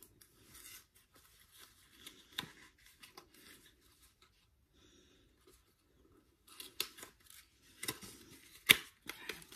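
A small cosmetic's cardboard box and inner packaging being handled and opened: soft rustling, then sharp crackles and clicks through the last three seconds, the loudest one near the end.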